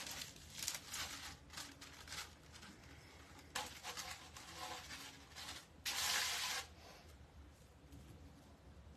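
Stiff plastic deco mesh rustling and crinkling in the hands in short scratchy bursts, with a louder rustle lasting under a second about six seconds in.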